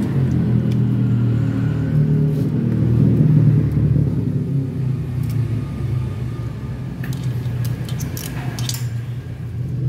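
A motor vehicle engine running with a low, steady hum that swells about three to four seconds in and then eases off. Near the end come several light metallic clinks, as the loose cam chain is pulled out of the engine case.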